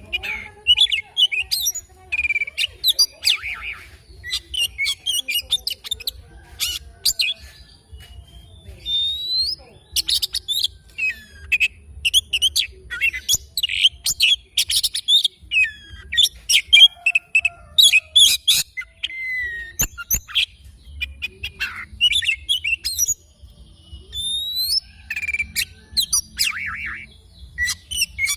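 Oriental magpie-robin singing a varied song of clear whistles, upward and downward sweeping notes and fast chattering phrases, broken by short pauses.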